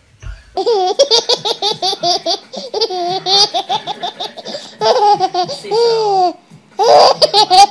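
Baby laughing hard in repeated fits: quick strings of high-pitched pulsed giggles, each fit lasting a second or two, with short breaths between.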